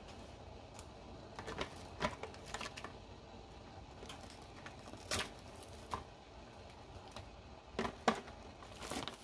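Irregular light clicks and knocks of kitchen utensils and dishes being handled. A few come close together early on, two fall singly in the middle, and a few more come near the end.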